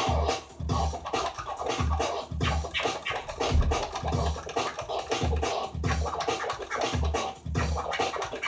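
DJ scratching on a CD turntable, the scratches chopped by quick crossfader cuts, over an electronic beat with a heavy, regular kick drum.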